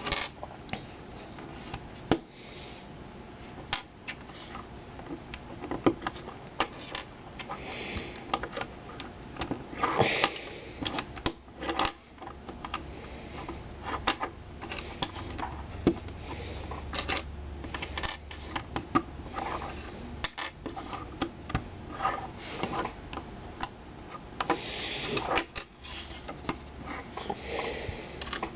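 Small plastic LEGO pieces clicking, tapping and rattling as they are handled and pressed together, in irregular sharp clicks with short bits of rustling.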